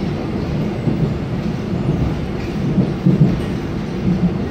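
Steady low rumble of a Seoul Subway Line 1 electric train running through a tunnel, heard from inside the passenger car, with wheel and track noise.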